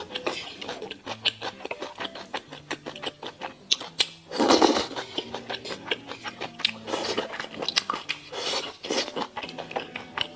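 Close-miked eating sounds: wet chewing, mouth smacks and small clicks in quick succession, with one louder burst about four and a half seconds in, over soft background music.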